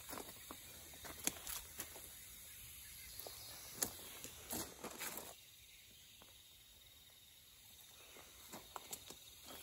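Quiet woodland ambience with a few scattered, irregular footsteps and small clicks on gravel, growing quieter through the middle.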